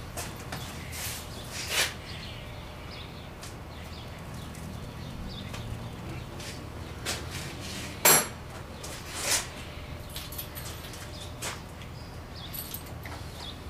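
Scattered light clicks and knocks of handling, with one sharp click about eight seconds in and a smaller one a second later, over a low steady hum; no engine running.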